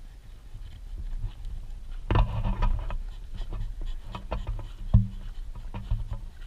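A large bully kutta dog panting close by, with scattered scuffs and knocks, loudest about two seconds in.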